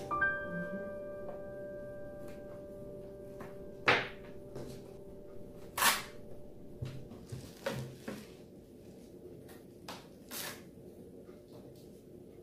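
Knocks and clicks from a new GourmetMaxx air fryer's plastic body being handled, the two loudest about four and six seconds in, with a few lighter ones after. The fading tail of piano music is heard at the start.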